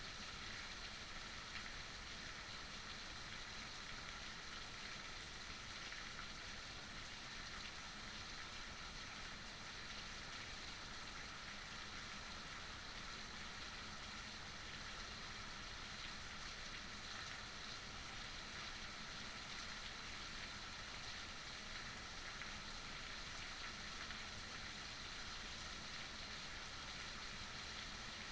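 Heavy rain falling steadily, an even hiss of drops on surfaces.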